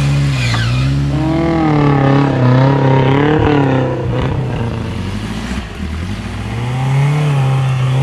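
Off-road 4x4's engine running under load, its pitch rising and falling again and again as the throttle is worked, easing off for a couple of seconds past the middle before picking up again.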